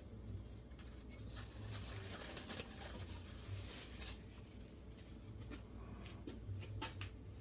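Packing material being pulled off a new bench vise: scattered soft rustles and light taps over a low steady hum.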